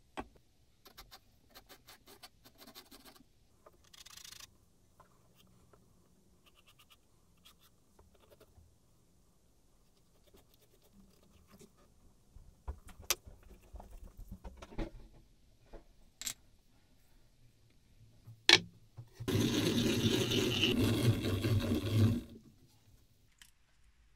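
Pencil scratching on a wood block, with a few sharp clicks. Then, the loudest sound: a drill running and boring into wood with a Forstner-type bit for about three seconds, stopping abruptly.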